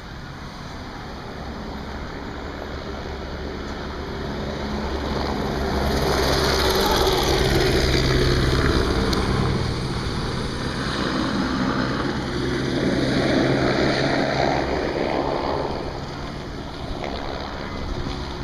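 Police helicopter flying low overhead, its rotor beating steadily; the sound swells to its loudest about six to nine seconds in, eases, then swells again around thirteen seconds as it passes.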